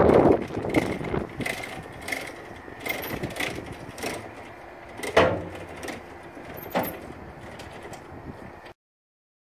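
Steel folding ROPS roll cage on a mini excavator being swung down by hand: a run of metal clanks and knocks from the frame and its pivots, loudest at the start and about five seconds in. The sound stops abruptly shortly before the end.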